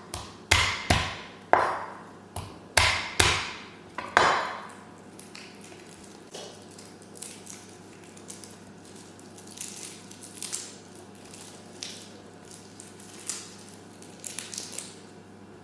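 Knife chopping on a cutting board: about seven hard, separate chops in the first four seconds, each with a short ringing tail, then lighter scattered knocks and taps.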